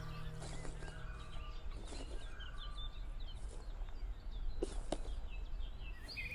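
Small birds chirping in quick short calls, with two sharp clicks a little past the middle.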